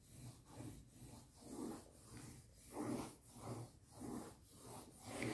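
Coloured pencil scribbling back and forth on drawing paper in quick, even strokes, about two to three a second.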